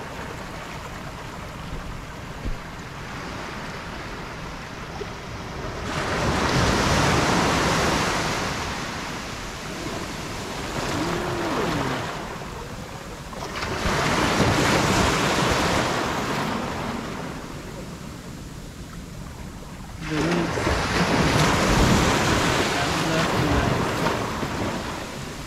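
Ocean surf breaking on a beach: three waves swell in and wash out, a few seconds each, over a steady low wind rumble on the microphone.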